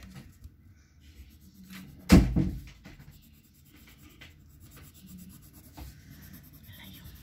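Coloured pencil scratching softly on paper in short strokes as it colours in a drawing. One loud thump about two seconds in.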